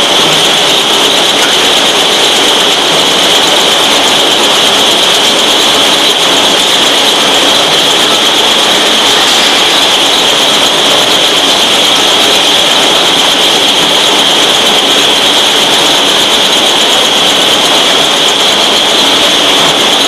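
Pilfer-proof cap making machinery running, a steady, loud mechanical noise with a strong high hiss and no break or change.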